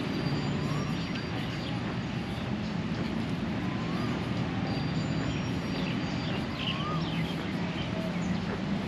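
Outdoor park ambience: a steady low background rumble, with a few short, separate bird chirps through it.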